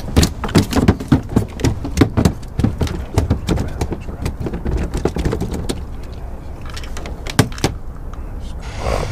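Gear being handled in a small plastic boat: a quick, irregular run of clicks and knocks for about six seconds, then only a few scattered ones.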